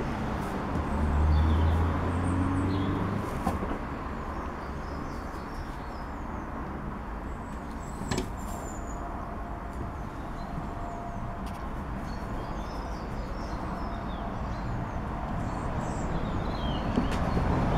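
Outdoor background sound: a steady hum of distant traffic with small birds chirping now and then. A brief low rumble comes about a second in, and a single click near the middle.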